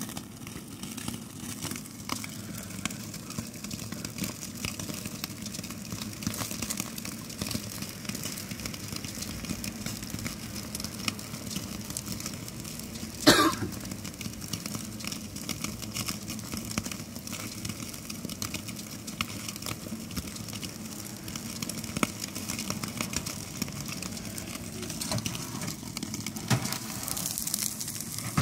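Steak sizzling and spitting fat under the high-heat gas burner of a Bighorn infrared grill, a steady hiss with many small crackles. About halfway through comes one short, loud scrape, the loudest sound in the stretch.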